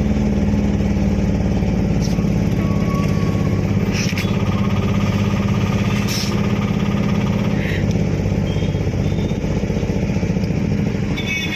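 A steady engine drone with an unchanging low hum and no break.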